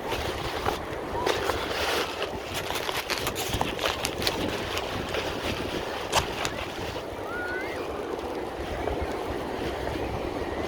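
Ocean surf washing around a beach wheelchair in the water, with a run of sharp splashes between about one and four seconds in and one more a little past the middle.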